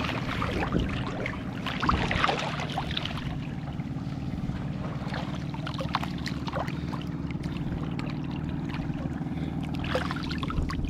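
A small boat engine running at a steady idle, with water splashing and sloshing over it, a little louder about two seconds in.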